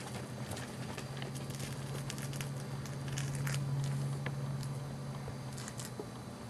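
Chihuahua puppies mouthing and nosing plush toys on a fleece blanket: scattered small crackles and clicks, over a steady low hum that swells in the middle and stops near the end.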